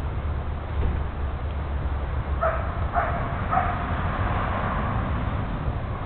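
A dog barking three short times, about half a second apart, over a low rumble.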